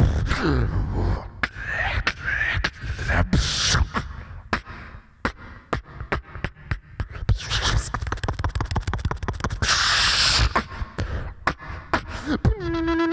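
Beatboxing into a handheld microphone: deep kick-drum thumps, sharp clicks and bursts of hissing cymbal-like sounds, with a fast run of clicks in the middle. Near the end a held pitched note begins.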